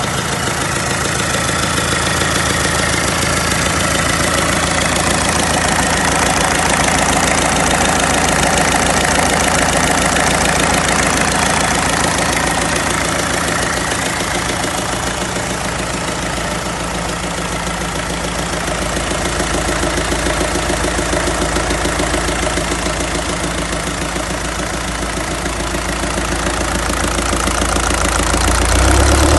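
1994 Isuzu 4BD2T four-cylinder turbo-diesel engine running on a test stand, idling steadily; right at the end its speed begins to rise.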